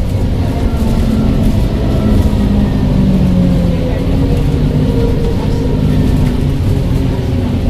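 ADL Enviro 400H hybrid double-decker bus running, a steady low rumble with faint whistling tones that slide up and down in pitch.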